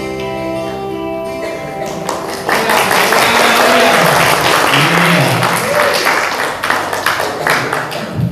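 A mixed school choir holds its final sung chord and cuts it off about two seconds in. Audience applause then breaks out and fades into scattered claps, with a voice calling out briefly about five seconds in.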